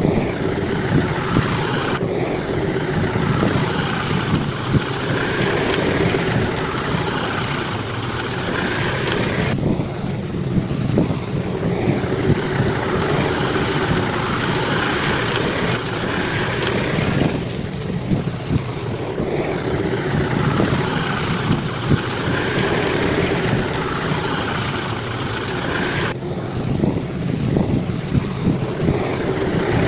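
Bulldozer's diesel engine running steadily, its sound easing and picking up again every several seconds.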